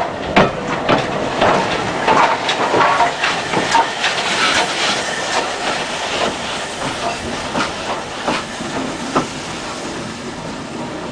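BR Standard Class 4MT 2-6-4 tank engine 80104 passing close by on the next track: irregular clicks and knocks of wheels over the rails, over a hiss of steam. The sound is loudest in the first half and fades as the engine draws away.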